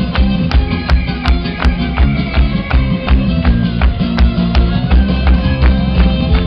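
Live band playing loudly over a festival PA: brass, violin and guitars over a heavy bass line and a steady quick drum beat of about three hits a second.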